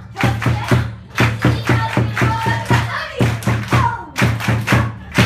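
Japanese festival-style stage music driven by a large taiko drum beaten with wooden sticks in a quick, even beat, with the audience clapping along.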